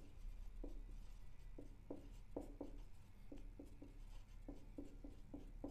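Someone writing by hand: a faint run of short, quick strokes, about three a second.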